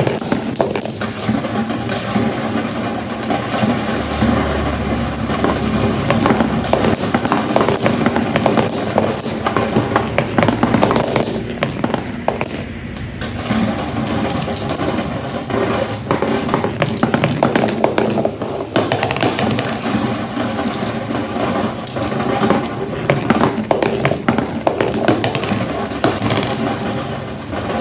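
Marbles rolling and clattering down a homemade marble run: a dense, continuous rattle of many small clicks, thinning out briefly about twelve seconds in.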